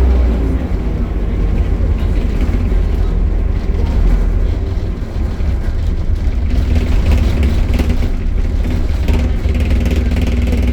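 Optare Solo single-deck bus running, a steady low rumble of engine and drivetrain.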